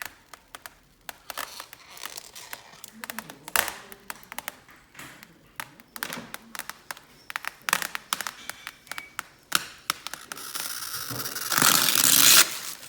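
Protective plastic film being peeled off new PC hardware: scattered crackles and small ticks, then a long, louder continuous peel about ten seconds in.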